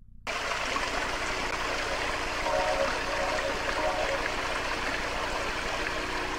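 Small waterfall splashing over rocks: a steady rush of falling water that starts suddenly just after the beginning. Faint held tones come in from about two and a half seconds in.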